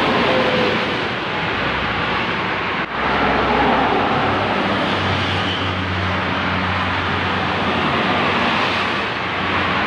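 Highway traffic as intercity coaches and cars pass at speed: a steady rush of tyre and engine noise. A brief drop about three seconds in, then a coach's low engine drone joins from about five seconds in.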